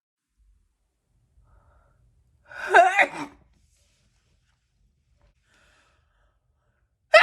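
A woman sneezing: a pitched, wavering sneeze about two and a half seconds in, and a second sharp sneeze starting right at the end.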